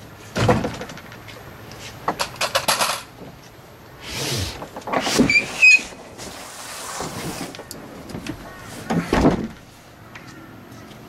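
Kayak-fishing gear being handled and loaded in the back of a car: knocks and clicks, one near the start, a quick cluster about two seconds in and a heavier one near the end, with scraping and rustling in between and a few short squeaks about five seconds in.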